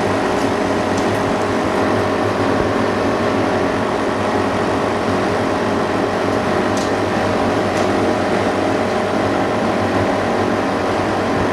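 Steady electric hum with several fixed tones, from the overhead fan and filter unit of a small dust-free workroom. A few faint light clicks sound over it.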